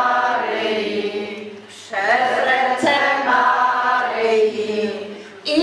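A group of women singing a Polish song of good wishes in unison, one voice leading through a microphone. Two long sung phrases, each trailing off into a short breath pause, one about two seconds in and another near the end.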